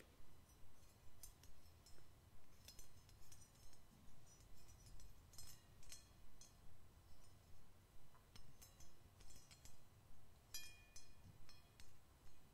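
Thin metal prongs of a wire scalp massager being flicked and plucked by fingertips close to the microphone. Faint, irregular metallic clicks and tiny pings.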